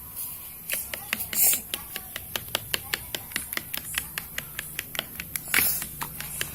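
Jiggly slime being squeezed and poked by hand, giving a quick run of small sharp clicks and pops, several a second, with a couple of louder squelching bursts.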